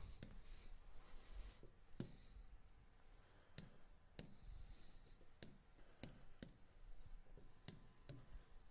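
Faint, sharp clicks, about a dozen spaced irregularly, from selecting menu options and the pen tool on a computer; otherwise near silence.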